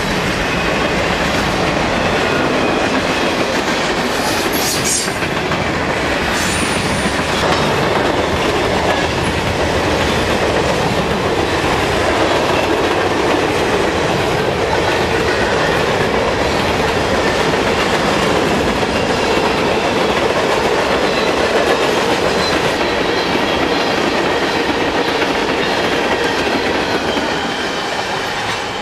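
A loaded freight train's cars rolling past close by: a steady, loud run of steel wheels on rail. Two brief high-pitched squeals come from the wheels about four and six seconds in.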